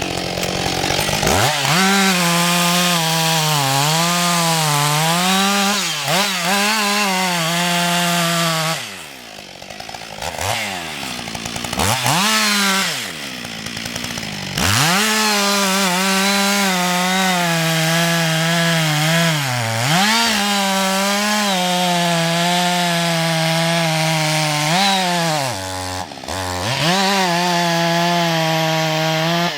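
Husqvarna 560 XP two-stroke chainsaw at full throttle cutting wood, its pitch wavering and sagging as the chain bites. The throttle is let off briefly three times, the engine dropping toward idle before revving up again.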